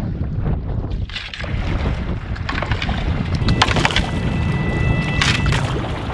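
Wind buffeting the microphone over water rushing along a cedar strip canoe's hull as it sails, with splashes from a wooden paddle dipping in strokes. A thin high tone sounds briefly around the middle.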